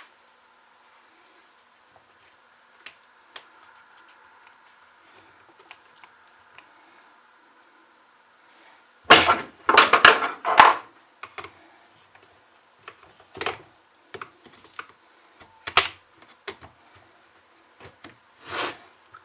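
Tools and chainsaw parts knocking and clattering on a workbench during disassembly: scattered clicks, a loud burst of rattling about nine to eleven seconds in, and a few more knocks after. A faint high chirp repeats about twice a second under it.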